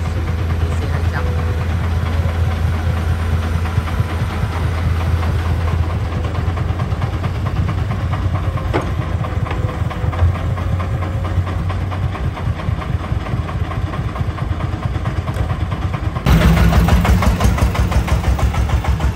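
Diesel engines of a Komatsu PC200 excavator and idling three-wheeled công nông trucks running steadily, with a single thud about ten seconds in as the bucket works over the trucks. About sixteen seconds in, the sound cuts to a louder, close small dump truck's diesel engine idling with a fast, even chug.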